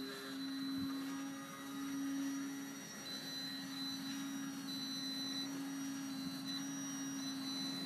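Control-line aerobatic model plane's motor buzzing at a steady high pitch as the plane circles the pilot on its lines, the sound swelling and fading every second or two as it passes.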